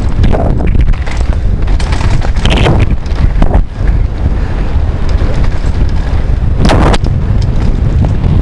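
Wind buffeting a helmet camera's microphone on a fast downhill mountain-bike run, a dense loud rumble, with the bike rattling over the dirt trail and a few sharper hits, the clearest near the end.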